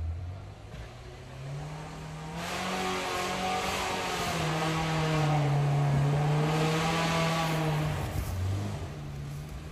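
Off-road 4x4's engine revving hard under load, its pitch climbing over the first couple of seconds, held high with a rushing hiss for several seconds, then dropping off about eight seconds in.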